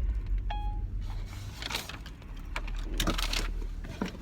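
Car engine idling as a low steady hum, with a short beep about half a second in; the hum stops about a second and a half in, followed by several short bursts of rustling and handling noise.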